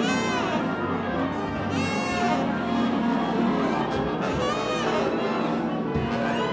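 Large jazz ensemble playing a full-band passage, with saxophones, trombones and trumpets over piano and upright bass.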